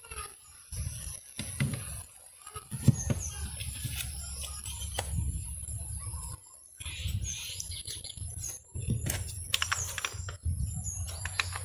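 Scooter centrifugal clutch shoe assembly handled and fitted into its metal clutch drum: scattered light clicks and knocks of metal parts, with a cluster of sharper knocks near the end.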